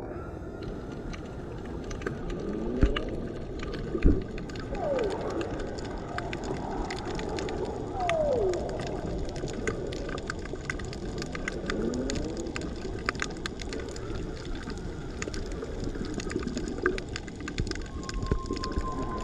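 Underwater soundscape: a constant crackle of fine clicks, with sliding calls every few seconds, some falling in pitch and some rising. Two sharp low thumps come around three and four seconds in, and a brief steady whistle sounds near the end.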